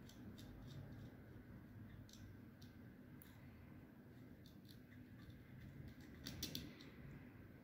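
Near silence with faint scattered clicks of wires and crimped terminals being handled at a spindle motor's terminal block, with a short cluster of louder clicks about six seconds in.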